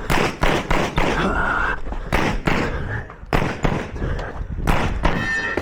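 A rapid string of 9mm pistol shots from a Glock 34 in a USPSA stage run, fired mostly in quick pairs. Two short ringing tones sound among the shots, about a second in and near the end.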